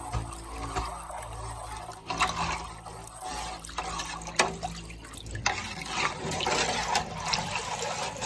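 Water splashing and trickling, with a few sharp knocks.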